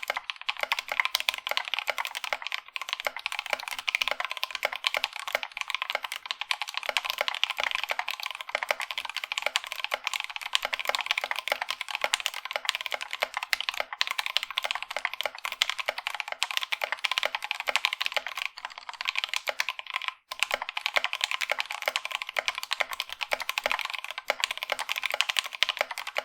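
Continuous fast typing on a mechanical keyboard, a GK61 fitted with Gateron Caps Yellow (gold-spring) linear switches, with a brief pause about 20 seconds in.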